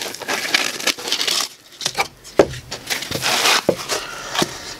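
Dense foam packing blocks pulled off a polymer rifle stock and set down: irregular scraping and rustling of foam against plastic and cardboard, with a few knocks.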